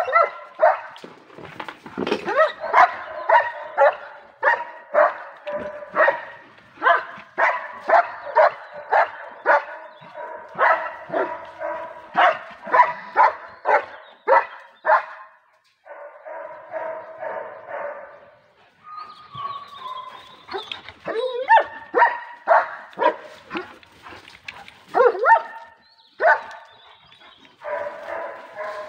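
Dogs barking over and over, about two barks a second, with a couple of short pauses partway through.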